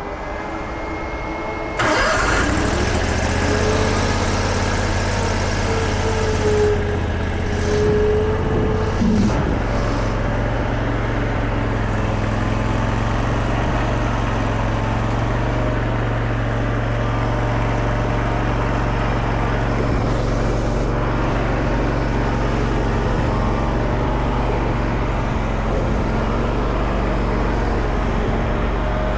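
Mini stand-up skid steer's engine starting about two seconds in, then running steadily at a constant speed.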